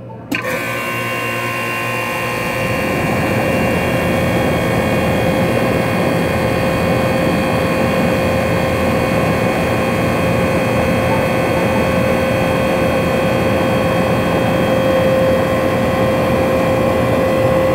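A 2006 Weatherking 2.5-ton central air conditioner condenser switches on from off. The compressor and condenser fan kick in suddenly at the start, come up to speed over the first couple of seconds, and then run steadily with a constant hum under the fan's rushing air.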